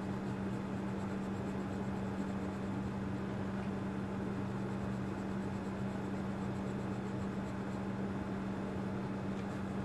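Colored pencil shading on paper, a soft, even scratching of the pencil lead, over a steady low background hum.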